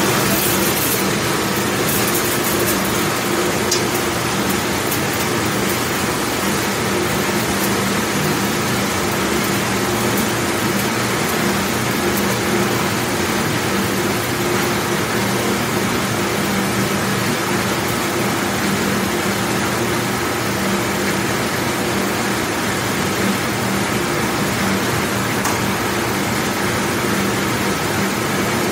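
Large commercial dishwashing machine running: a steady rush of spraying water over a low motor hum, with a few light clicks in the first few seconds.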